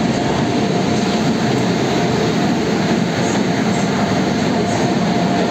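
Indian Railways passenger train rolling past close alongside the platform: a loud, steady rumble of wheels and coaches.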